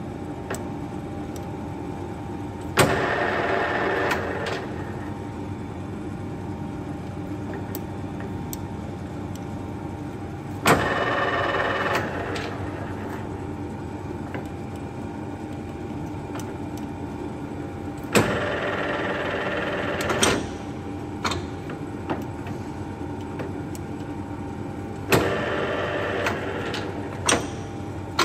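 Colchester Triumph 2000 lathe with its 5.5 kW motor running steadily while the spindle speed is changed. Four times a clunk is followed by the headstock gears running louder for one to two seconds before dropping back to the steady hum.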